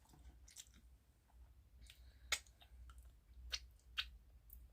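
Faint chewing with scattered sharp wet mouth clicks and smacks, the loudest about halfway through and a couple more near the end.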